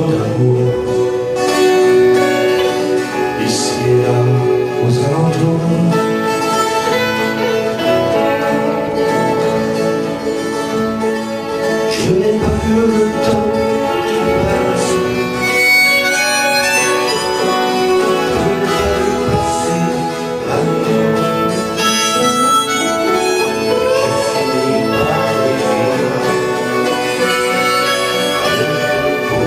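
Acoustic band music: a harmonica playing the melody over guitar accompaniment, an instrumental passage without singing.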